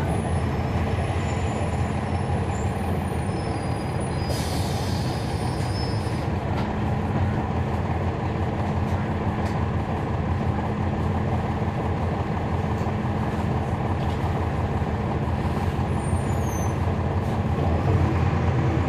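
Cabin sound of a NABI 40-SFW transit bus with a Cummins ISL9 diesel engine running steadily, its ZF Ecolife transmission barely heard. A short hiss comes about four seconds in, and brief high squeals come near the end.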